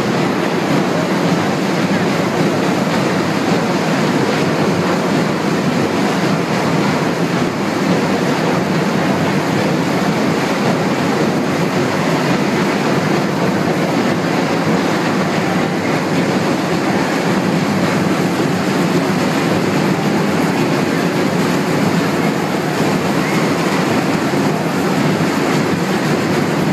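Loud, steady din of a carnival band and crowd in a large hall, heard as a dense rumbling wash without clear beats or voices.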